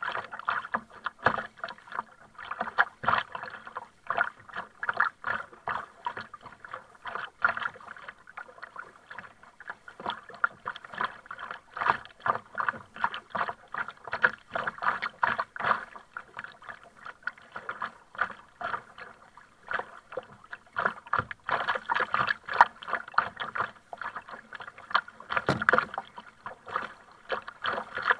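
Paddling a plastic sit-on-top kayak through choppy sea: a double-bladed paddle dipping on alternate sides while small waves splash and slap against the hull in a dense, irregular run of splashes.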